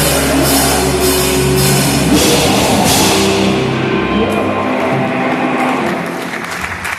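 A live rock band playing: drums with cymbal crashes, guitars and bass. About four seconds in the bass drops out and the music carries on more quietly, thinning toward the end of the song.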